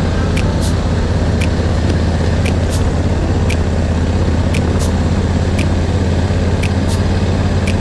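Adventure motorcycle engine running at a steady speed on a gravel track, a constant low hum, with sharp irregular ticks every half second or so.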